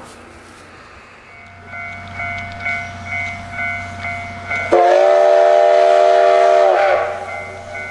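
Train horn sounding one long blast of about two seconds, a chord of several tones. Under it runs a steady low hum and a high ringing tone that pulses about twice a second.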